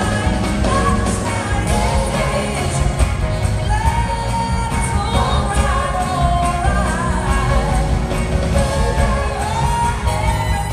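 Live band playing: a woman's lead vocal sung into a microphone over electric guitar and a drum kit.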